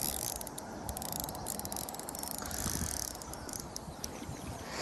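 Fishing reel ticking in fast, irregular clicks with a high hiss as line runs off it: a hooked carp is being played.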